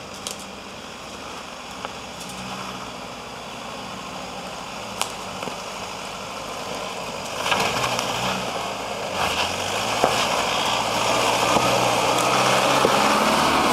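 Toyota Land Cruiser Prado four-wheel drive crawling up a rocky track at low speed. Its engine hum and tyre noise grow steadily louder as it approaches, loudest in the last few seconds, with a few sharp clicks along the way.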